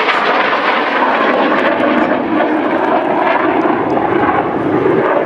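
BAE Systems Hawk T1 jet trainers, each with a single Rolls-Royce Turbomeca Adour turbofan, flying overhead in formation: loud, steady jet engine noise.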